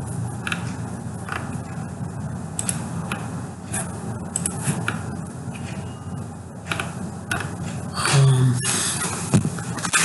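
Scattered computer mouse clicks and scroll-wheel ticks over a steady low background hum.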